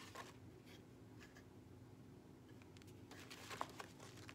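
Near silence with faint rustles and light taps of paper and cardboard packaging being handled, a small cluster of them about three seconds in.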